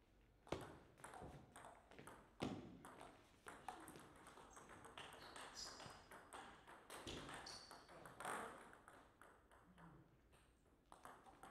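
Table tennis ball clicking off rubber bats and the table during a rally: a quick run of sharp knocks about half a second apart in the first few seconds, then a few scattered clicks.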